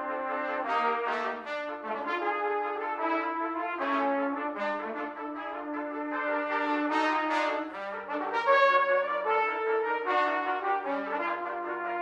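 Brass ensemble of two C trumpets, two B-flat trumpets and two flugelhorns playing in harmony, several held notes sounding together and changing every second or so.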